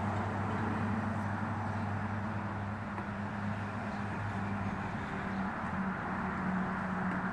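Steady low engine hum over constant background noise; the deeper of its two tones fades out about two-thirds of the way through.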